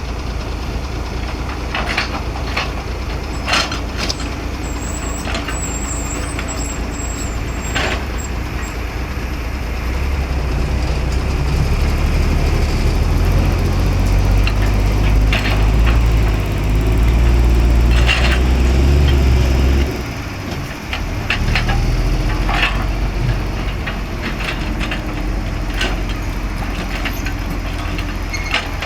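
Heavy diesel excavator engine running steadily, then working harder for about ten seconds midway before dropping back abruptly, with scattered knocks and clatters throughout.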